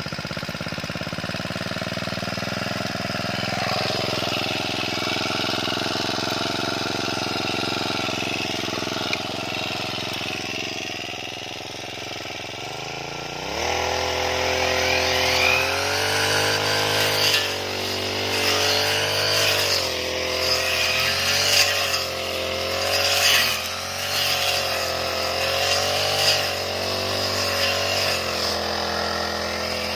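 Backpack brush cutter's four-stroke engine, a Chinese-made Honda GX35 copy, idling steadily. About 13 seconds in it revs up and runs at high speed, its pitch wavering under load as the blade cuts through grass and weeds, with scratchy swishes from the cutting.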